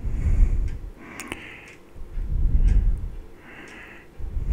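Small electric RC toy truck driving on a hard floor, heard from a camera mounted on it: the motor and wheels rumble in bursts of about a second as it moves off and stops, with a few light ticks.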